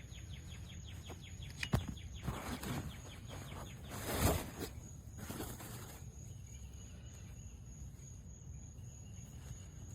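Insects chirping in a fast trill that fades about two seconds in, over steady outdoor background noise, with a sharp click a little under two seconds in and a louder rustling knock about four seconds in.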